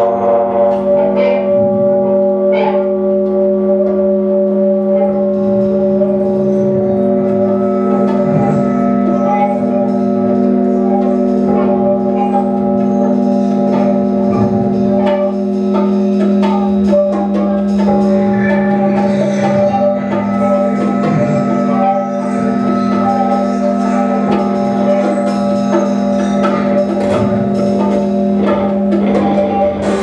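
Live instrumental music from a band of electric guitar, electronics and drums: a steady drone of held tones with light, scattered percussion hits over it.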